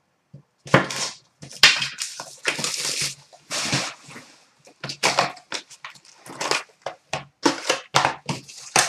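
Crinkling and rustling of packaging as a hobby box of hockey card packs is opened and the packs are pulled out and set down: a run of short, crackly noises.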